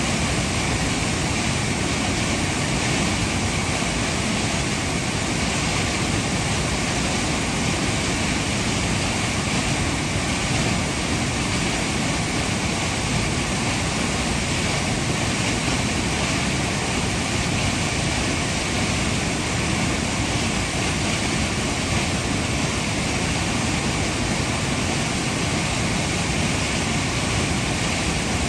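Sol Duc Falls: the river pouring in several channels into a rock gorge, a steady, even rush of falling water.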